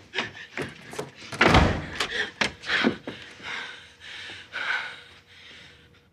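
A run of heavy thuds and knocks as a man falls down a carpeted staircase, the loudest and deepest about a second and a half in, then softer sounds.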